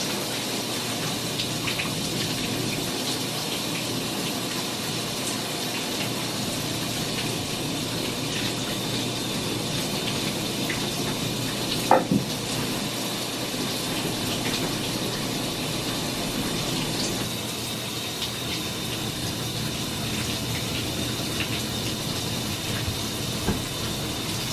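Shower running steadily, its water pattering onto a person and the tub. A single sharp knock about halfway through.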